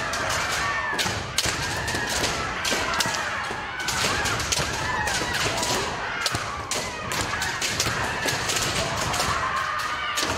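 A hall full of kendo players in practice: overlapping drawn-out kiai shouts from many voices, over a dense, irregular clatter of bamboo shinai striking armour and feet stamping on the wooden floor.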